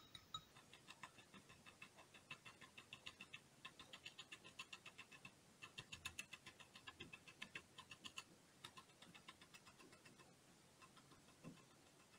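Faint, rapid tapping of a stiff round bristle brush stippling paint onto hardboard, in runs of quick taps with brief pauses.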